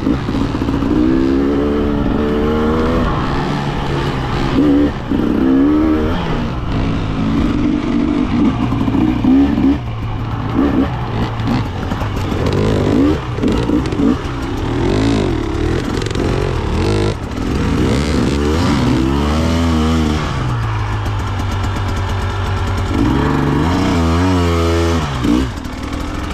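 Husqvarna TE300 fuel-injected two-stroke dirt bike engine being ridden hard, revving up and down with the throttle in repeated rising and falling sweeps.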